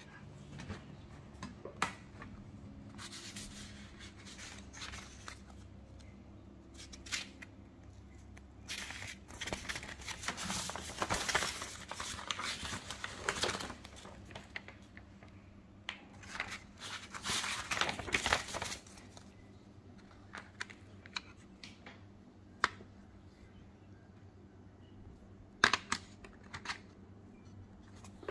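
Paper leaflet rustling and crinkling as it is handled and unfolded, in two long stretches in the middle. Scattered clicks and taps come from a metal tin of 24 Goldfaber Aqua watercolour pencils and its pencils being handled.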